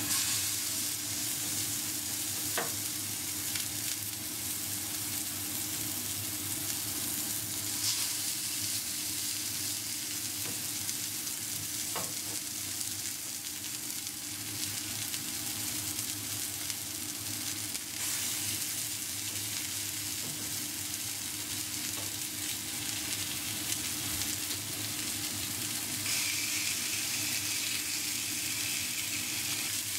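Raw minced-meat hamburger patties sizzling in hot oil in a black frying pan. The sizzle starts as the first patty goes in and continues steadily as more are laid in beside it, with a few light clicks.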